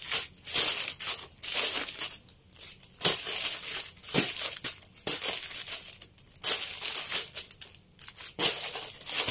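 Clear plastic bags of folded T-shirts crinkling and rustling as they are handled and shuffled through, in irregular bursts with brief pauses.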